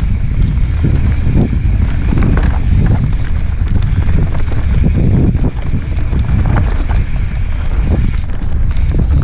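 Mountain bike rolling fast over dirt singletrack, with wind rumble on a helmet-mounted camera's microphone. Irregular clattering knocks come from the bike jolting over roots and rocks.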